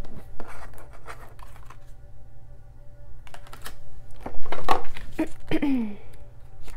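Oracle cards being handled and laid down on a tabletop: a scatter of soft clicks, taps and rustles, busiest and loudest about four and a half to six seconds in, with a short falling squeak near the end.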